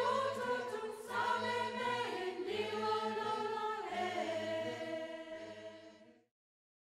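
Choir singing held chords that change a few times, fading out and stopping a little after six seconds in.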